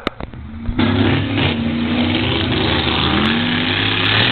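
Monster truck engine revving hard. It comes in suddenly about a second in, dips briefly in pitch partway through, then holds a steady high rev.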